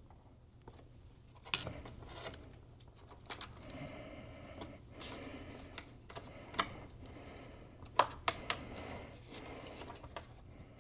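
Hands handling parts inside an opened iMac: scattered light clicks and taps of plastic and metal parts being fitted, with stretches of rustling, and a few sharper clicks, the loudest near the middle and about two thirds of the way through.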